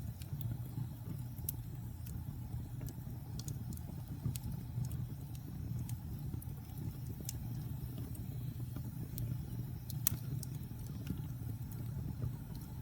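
Wood fire burning: a steady low rumble of flames with irregular sharp crackles and pops, one louder pop about ten seconds in.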